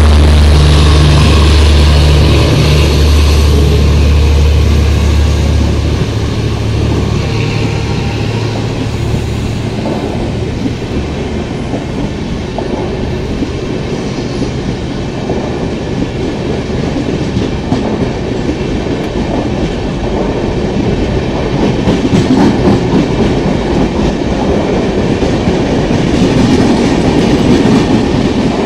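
Passenger coaches of a departing express rolling past, wheels clicking over rail joints with a dense rumble that grows louder again near the end as the train picks up speed. In the first few seconds a low steady drone from the luggage-brake-and-generator car's diesel generators passes and fades out.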